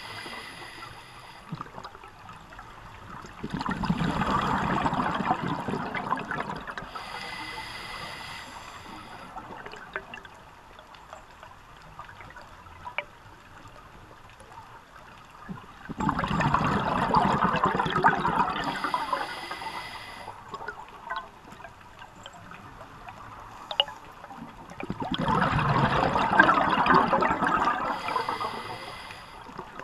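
A scuba diver breathing through a regulator underwater: three bursts of exhaled bubbles, each a few seconds long, come about ten seconds apart.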